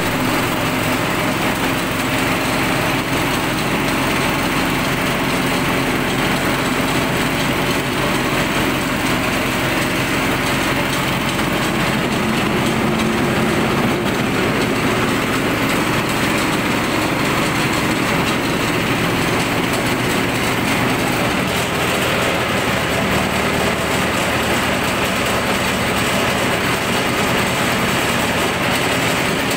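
Honda GX single-cylinder petrol engine running steadily, driving a corn sheller's spiked drum round through a V-belt, with the drum spinning empty.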